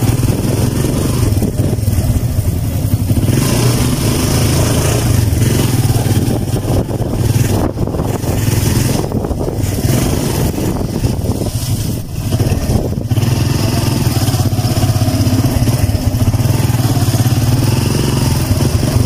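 Motorcycle engine of a motorcycle-and-sidecar tricycle running while riding along, a steady low engine note with road and wind noise over it; it eases off briefly a few times around the middle.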